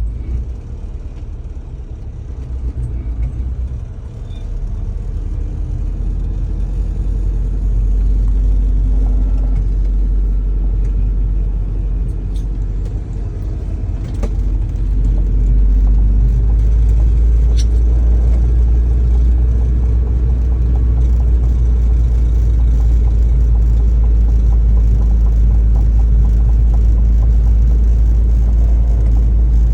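Citroën DS driving slowly in circles: a steady low rumble of the car in motion that grows louder twice, with a few faint clicks and a faint hum coming and going in the middle.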